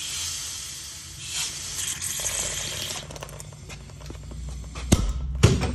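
Hissing spray in a few long bursts, followed by scattered clicks and two sharp knocks near the end.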